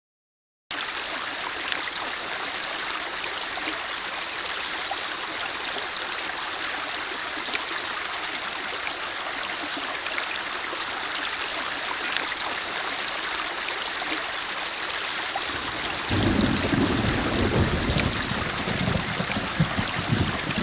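Running stream water trickling and gurgling over stones. It starts abruptly just under a second in. A few brief high chirps sound over it, and about three-quarters of the way through a fuller, lower gurgle joins.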